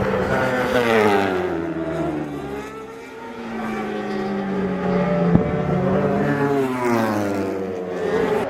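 World Superbike racing motorcycles running hard past the corner, their engine pitch climbing, dropping and climbing again as they accelerate and change gear. One sharp crack comes about five seconds in.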